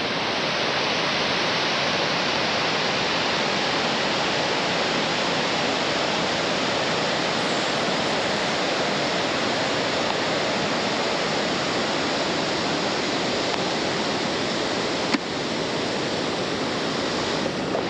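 Rushing water, a waterfall or fast mountain stream, making a loud, steady roar. There is a single short click about 15 seconds in.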